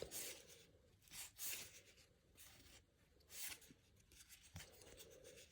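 Baseball cards being handled and sliding against each other: a few soft, brief swishes with near silence between them.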